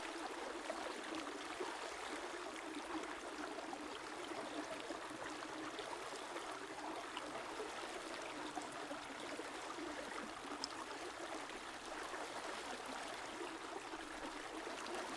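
A river or stream flowing, a steady, gentle babbling of running water.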